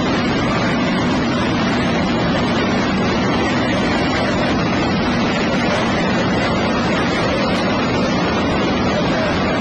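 Race car engines of a dirt-track feature race, running together as a loud, steady, unbroken wash of noise, muffled and distorted by a poor-quality recording.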